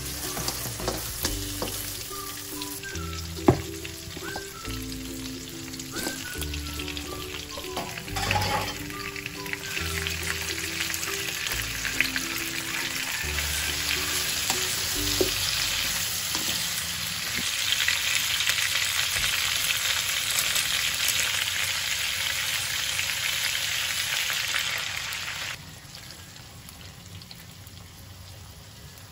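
Onions, chilies and tomatoes sizzling in hot oil in a nonstick wok, stirred with a wooden spatula. The sizzle surges about eight seconds in as chicken feet go into the pan, is loudest a few seconds later, then drops off suddenly near the end.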